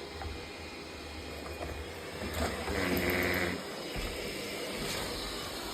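Yadea Fairy10 robot vacuum cleaner running with a steady whirring hiss and a low hum. About two and a half seconds in, a louder pitched sound lasts about a second, and then the low hum cuts off.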